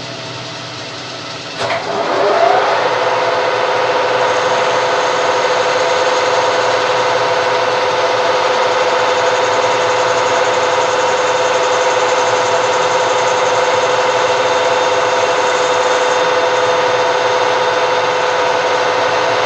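Lathe motor and spindle starting up about two seconds in, rising in pitch as they come up to speed, then running at a steady pitch while the plastic bar is turned down to 14 mm, and starting to slow right at the end.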